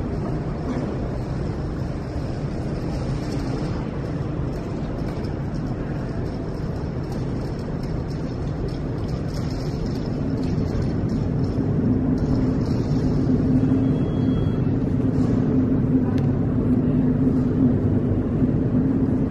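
A steady low engine rumble with a humming tone, growing louder from about eleven seconds in.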